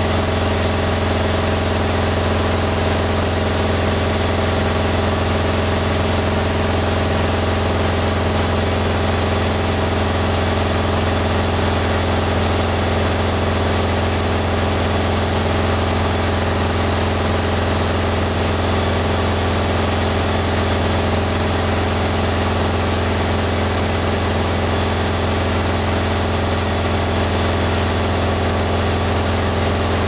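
Whirlpool front-loading washing machine on its spin cycle: the drum spins at a constant speed with a loud, steady hum and whir.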